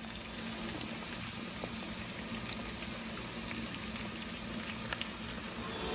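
Pink perch frying in a pan of hot oil: a steady sizzle of bubbling oil with scattered small crackles.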